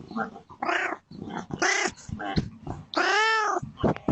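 Domestic cat meowing repeatedly to be let inside: several meows, the longest about three seconds in, rising and then falling in pitch.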